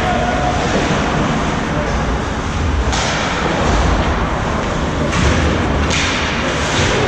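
Ice hockey game play in a rink: a steady rumbling din with several sharp knocks, about three seconds in and again from about five seconds on, from pucks, sticks and boards.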